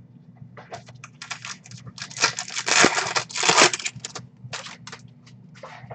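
Crinkling and tearing of a Topps Chrome Update trading card pack's wrapper as it is handled and opened, in quick bursts that are loudest midway.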